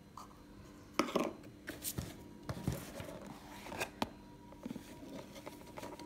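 A plastic measuring cup knocking and scraping against a stainless steel bowl as bicarb soda is tipped in, then powder being poured from a cardboard box into the cup. There are a few sharp knocks, the loudest about a second in and again about four seconds in, among rustling and scraping.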